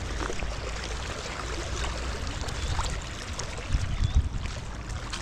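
Floodwater rushing in a strong current over a submerged road, a steady even rushing, with a few low bumps about four seconds in.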